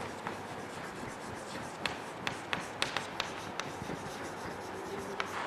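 Chalk writing on a blackboard: faint scratching strokes with a run of sharp taps in the middle as the chalk strikes the board.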